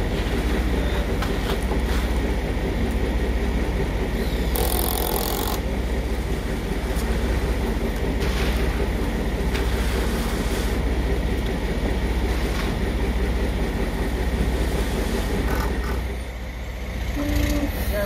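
Diesel engine of a ready-mix concrete mixer truck running steadily, a continuous low drone. A brief hiss about four and a half seconds in, and the drone eases off near the end.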